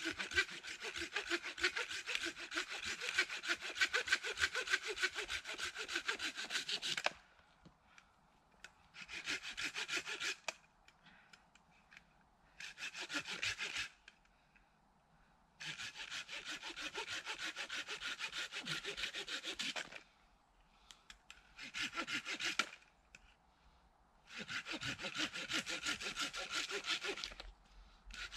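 Hand saw cutting firewood in quick back-and-forth strokes, in about six bouts with short pauses between, the longest about seven seconds at the start.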